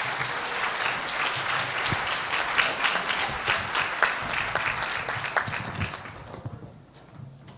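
Audience applauding, dense clapping that fades away about six seconds in.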